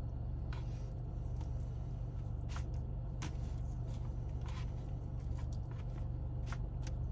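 Plastic knife and fork cutting chicken in a plastic takeout bowl, giving a scatter of faint short clicks and scrapes over a steady low hum.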